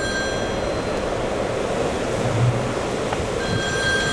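Steady rushing storm wind close to a tornado on the ground. A steady high tone sounds briefly at the start and comes back near the end.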